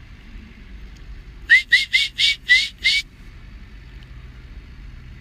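Six short, quick whistles, each rising in pitch, about four a second, calling a dog back.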